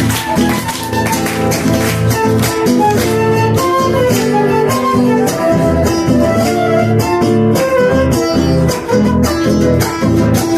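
Live Argentine folk music led by strummed acoustic guitar, with a steady rhythm.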